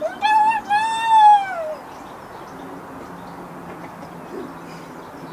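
A loud animal call in two parts, the second longer and arching up then down in pitch, over in under two seconds. After it comes a quiet outdoor background with a low steady hum.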